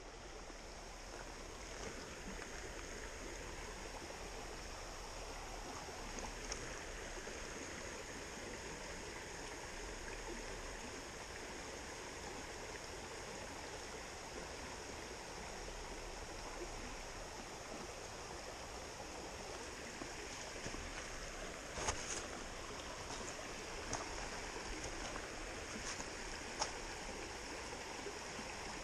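Shallow rocky creek running: a steady wash of moving water, with a few faint clicks late on.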